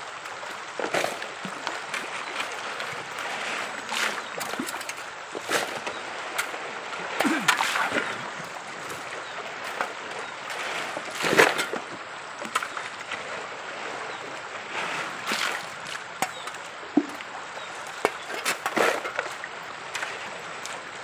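Shallow river water running, with splashing and scattered knocks and clatters of stones and gravel as the riverbed is dug and bucketfuls of gravel and water are poured onto a wooden gold-panning sluice box. The loudest knock comes a little past the middle.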